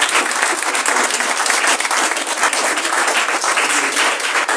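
A small group of people applauding, a steady patter of many hand claps.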